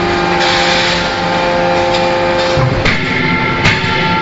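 Hydraulic die forging hammer running: a steady hum with a hiss about half a second in. Near the end the hum changes pitch and sharp knocks come about a second apart.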